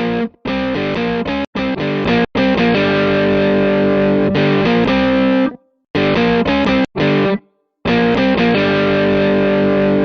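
Music with distorted electric guitar, played in chopped fragments that cut off abruptly to silence several times.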